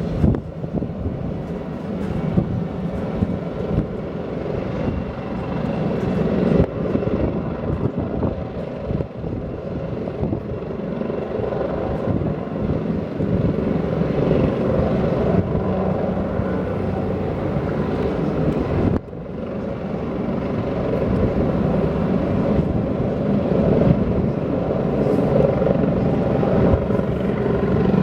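Helicopter rotor and engine running, a steady loud chopping drone, with a brief dip in level about two-thirds of the way through.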